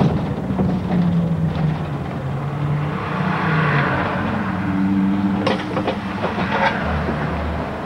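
Diesel engine of a city service bus running as the bus drives along, heard from inside the bus, its note dipping and rising with the throttle. A few sharp rattles a little past the middle.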